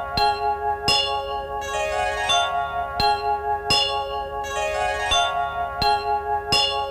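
Closing music of struck bell-like tones, about one every 0.7 seconds, each ringing on into the next; the music cuts off at the very end.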